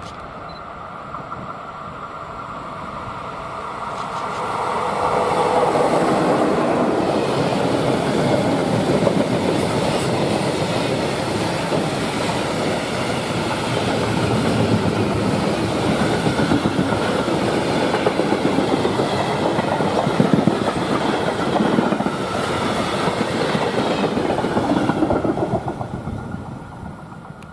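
Freight train passing by: the wagons' wheels run on the rails, building up over the first few seconds, staying loud for about twenty seconds and fading away near the end.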